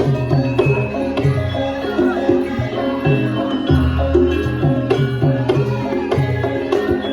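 Javanese gamelan music for lengger dance: kendang hand drums beating a steady rhythm under repeating, interlocking metallophone notes.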